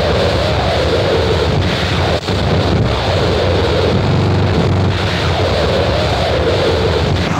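Harsh noise music: a loud, dense wall of distorted static over a heavy low rumble, with a wavering mid-pitched drone that swells and fades about every two seconds. The noise drops out very briefly about two seconds in.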